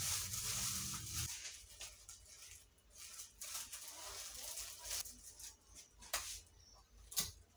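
Faint rustling of plastic food-prep gloves and plastic bags and light knocks on the table as breaded chicken rolls are handled. A sharp click comes about six seconds in and a louder one near the end. A steady hiss with a low hum stops about a second in.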